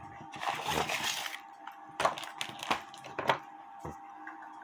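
Handling noise from an antique cuckoo clock movement being touched and turned: a short rustle, then three sharp clicks or knocks a little over half a second apart.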